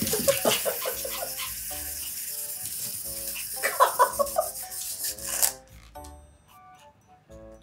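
Small pullback toy car's spring motor whirring with a fast rattle, stopping about five and a half seconds in, over light background music.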